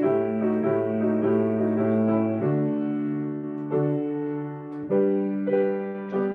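Offertory music: a piano playing slow, held chords, a new chord struck every second or so.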